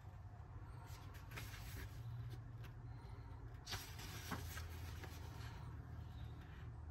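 Paper pages of a softcover art book being turned by hand: a few faint rustles and flaps, the loudest about four seconds in, over a low steady hum.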